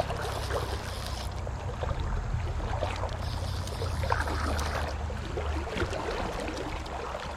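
Fast, high stream water rushing steadily, with a low rumble and scattered small splashes and clicks.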